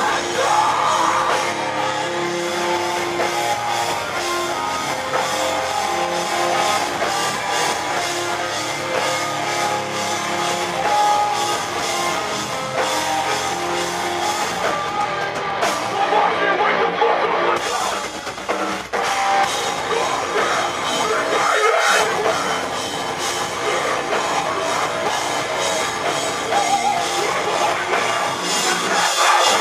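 Live metalcore band playing loud, with distorted guitars, pounding drums and cymbals and vocals at the microphone, with a short break about two-thirds of the way through.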